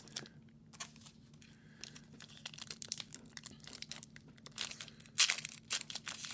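Foil wrapper of a hockey card pack being torn open by hand: faint crinkles at first, then louder crinkling and tearing from about five seconds in.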